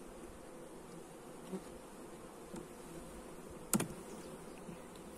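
Honeybees buzzing steadily in an open hive full of bees. About three-quarters of the way through comes a single sharp knock as a wooden frame is worked loose with a hive tool, with a few faint ticks before it.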